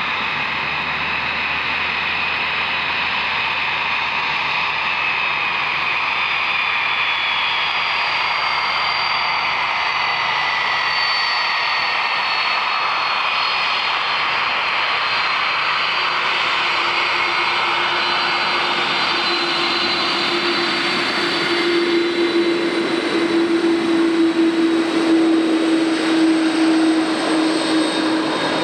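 Airliner jet engines whining, their high turbine tones slowly falling in pitch. Later a lower steady tone comes in, and the engine noise grows louder and rougher over the last several seconds.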